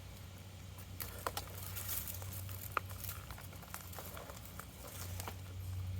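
Faint rustling and scattered light clicks of hands handling a potato grow bucket, its soil and dead-back potato foliage, over a steady low hum.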